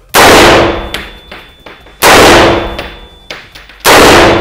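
Three unsuppressed shots from an AR-15 semi-automatic rifle, about two seconds apart. Each is a very loud crack followed by a long echoing decay in an indoor range.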